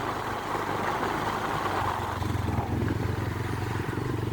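Motorcycle engine running steadily while riding, with a low, even drone.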